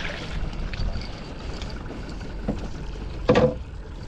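Steady low rumble of a fishing boat on the water, with one short, loud sound about three seconds in.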